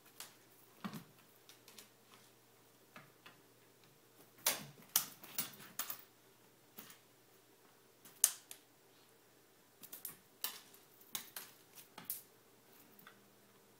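Irregular sharp clicks and taps, coming singly and in small clusters, the loudest about eight seconds in.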